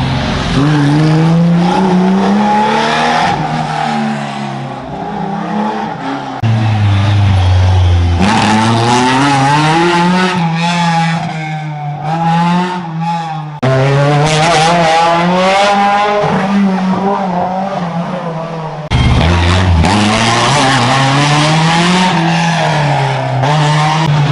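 Historic rally cars at racing speed, one after another, each engine revving hard and rising and falling in pitch through the gear changes, with tyres squealing through the corners. The sound switches abruptly from one car to the next several times.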